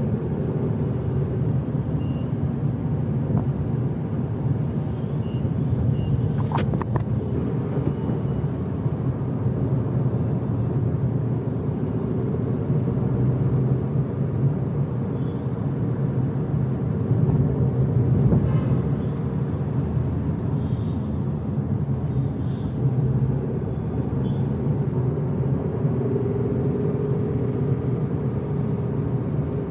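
Car driving in traffic: steady engine and road rumble, with a short sharp sound about seven seconds in.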